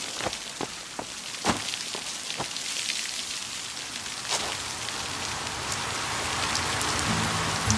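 A steady hiss with scattered sharp clicks and pops, like rain or splashing water. Background music comes in near the end.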